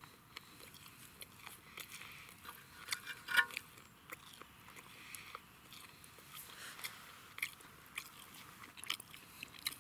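Chunks of meat frying in fat on a hot steel harrow-disc pan: fat sizzling and crackling, with many sharp pops and one louder pop about three and a half seconds in.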